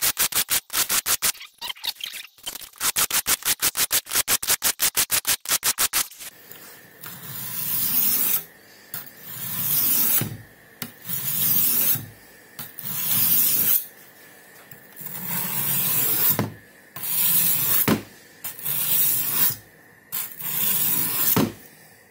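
Steel kitchen knife blade rubbing across a perforated diamond sharpening plate. First come quick back-and-forth strokes at about five a second on the 200-grit plate. From about six seconds in there are slower, longer strokes about once a second on the 600-grit plate.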